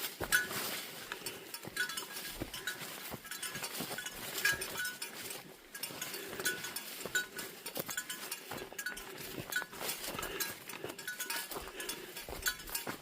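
Footsteps on a dirt forest trail, with a light clinking that repeats in step with them.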